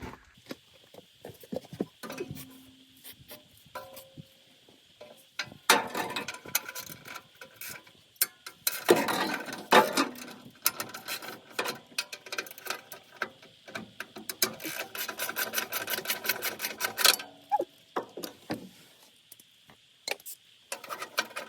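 Socket ratchet clicking in quick runs as heat-shield bolts are worked loose, with scattered metal clinks and taps between the runs.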